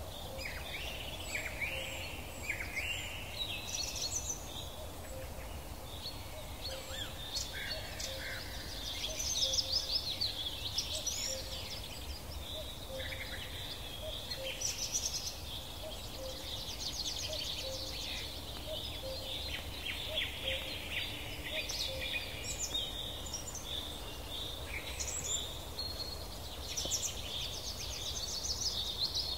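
Several songbirds singing together in a busy chorus of chirps, trills and whistled phrases that overlap throughout, over a steady low rumble.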